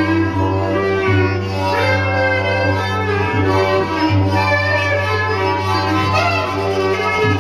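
Live instrumental music: a steady low drone, broken briefly a few times, under a wavering melody that slides in pitch.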